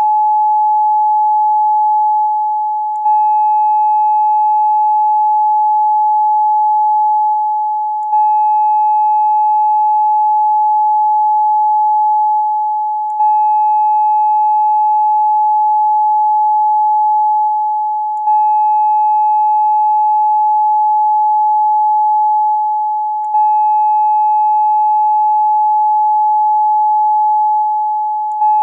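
A steady 852 Hz pure tone, the solfeggio frequency tied to the third-eye chakra, with faint higher overtones. It loops, the level sagging slightly and then jumping back about every five seconds.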